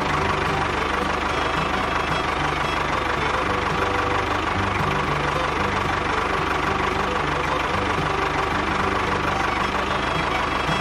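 Small engine idling steadily with a fast, even knocking beat.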